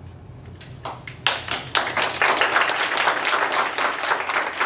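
A small group of students clapping. It starts with a few claps about a second in and quickly fills into steady applause.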